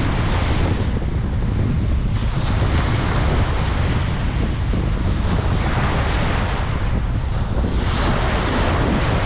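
Ocean waves breaking and washing up a beach, with swells of surf hiss a few seconds apart, over a constant low rumble of wind buffeting the microphone.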